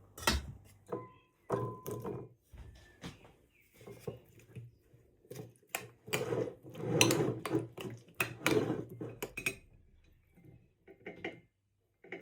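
Kitchen cookware and utensils being handled: a series of sharp knocks and clinks, one ringing briefly about a second in, with a busier stretch of clattering and scraping in the middle.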